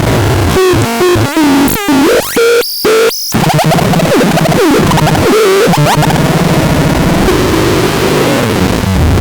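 Harsh electronic noise music: a loud, dense wall of noise with pitches swooping up and down. Several abrupt cut-outs come in the first three seconds or so, then it settles into a steadier noisy drone.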